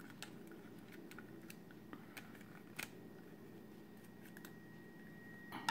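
Faint small plastic clicks and taps from a PVC figure being handled as its parts are fitted on, with a louder cluster of clicks near the end.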